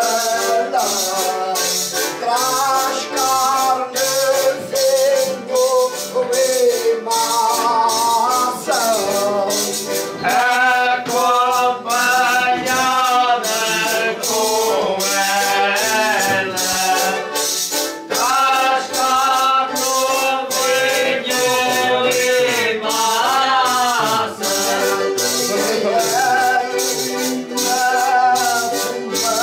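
A group of foliões singing a traditional song together, accompanied by button accordion and guitar, with a hand-shaken percussion instrument keeping a steady beat.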